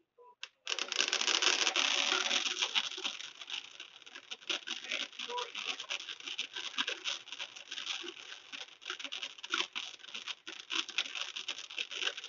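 Fireworks crackling: a dense, rapid stream of small pops and crackles starts suddenly about a second in, loudest at first, then thinning out but going on.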